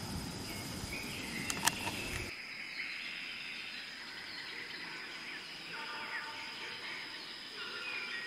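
Faint outdoor ambience: scattered short bird chirps over a steady high tone. A low noise in the first two seconds cuts off suddenly.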